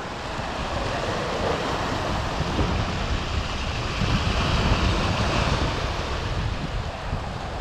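Ocean swell surging and washing over granite rocks just below, with wind buffeting the microphone. One surge swells up around the middle.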